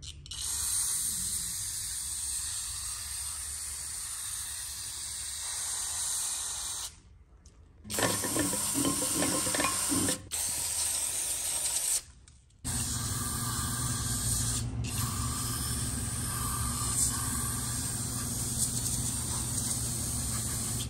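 Aerosol can of CRC Heavy Duty Degreaser spraying through its straw nozzle onto a lathe compound slide: a steady hiss in three long stretches with two short breaks between them.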